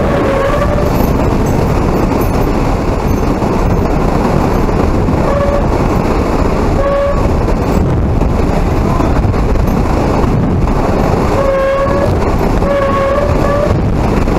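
Hurricane-force wind blowing hard as a loud, steady rush, with a pitched, horn-like howl that swells in and fades out several times, longest near the end.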